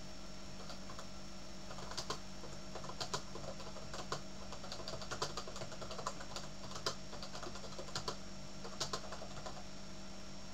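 Typing on a computer keyboard: irregular runs of key clicks, starting about a second in and stopping about a second before the end, over a steady background hum.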